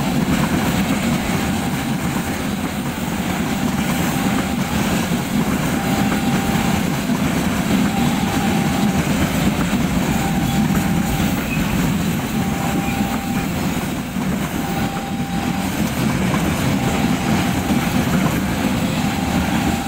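Train of empty flat wagons rolling past: a steady rumble of wheels on the rails, with a faint short tone repeating about once a second.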